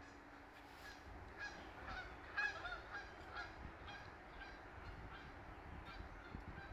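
Geese honking: a string of short calls, the loudest about two and a half seconds in.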